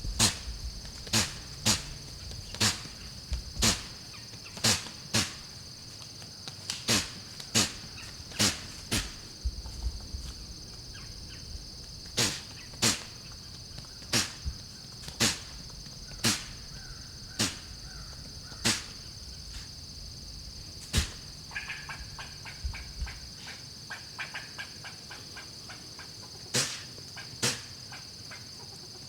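A whitetail doe sneezing over and over, short sharp bursts of breath about once a second, with a lull past the middle, over a steady high chorus of insects. The uploader supposes a bug flew up her nose.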